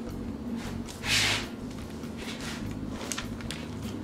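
Serrated bread knife slashing the floured top of a risen bread dough: soft rasping cuts, with one louder hissing rush about a second in and faint crackles near the end.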